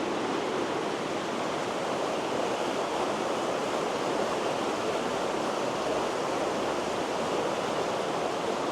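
River water flowing and rushing, a steady even rush of running water.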